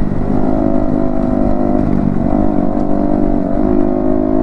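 Yamaha MT-15 V2's single-cylinder engine with an Akrapovic exhaust, running at steady riding revs with a slight dip in pitch about two seconds in.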